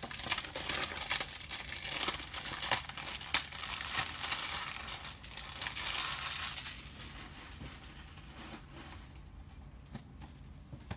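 Clear plastic shrink-wrap on a DVD case crinkling and tearing as it is peeled off and crumpled, a dense crackle with sharp snaps that dies down to lighter handling about seven seconds in.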